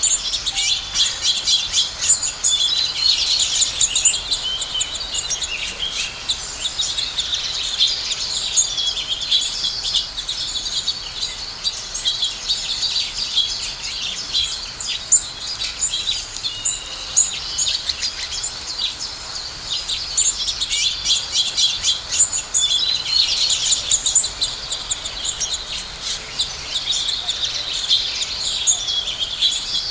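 A group of house sparrows chirping, many short overlapping chirps in a continuous busy chatter, thickest twice: a few seconds in and again near the end.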